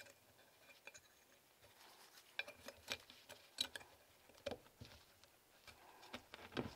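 Faint, scattered light clicks and ticks of a metal brake pad shim being pushed by hand onto the slot of a BMW Z4 E89 rear brake caliper bracket.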